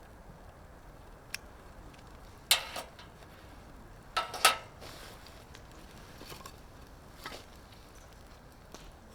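A few light knocks and clatters at irregular spacing over a faint steady hiss, the loudest about two and a half seconds in and a quick pair about four and a half seconds in.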